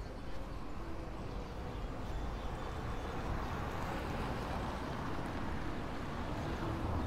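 Street ambience: a steady wash of city traffic noise that swells slightly around the middle and eases off again.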